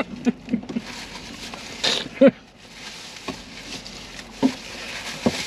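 Paper food wrapper and a cardboard takeout box rustling as they are handled, with a few short vocal sounds, the clearest about two seconds in.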